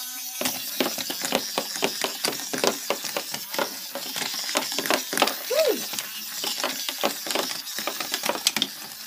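A small toy motor on a 9-volt battery spinning a home-made rig with craft knives attached, which clatters and skitters across a cutting mat in rapid, irregular clicks and knocks.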